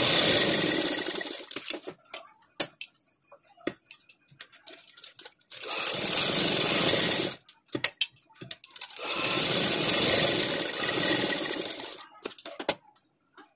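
Domestic sewing machine stitching in three runs of about two to three seconds each, stopping between runs while the fabric is turned. It is sewing a curved seam through two layers of cotton. Short clicks and taps of handling come in the pauses.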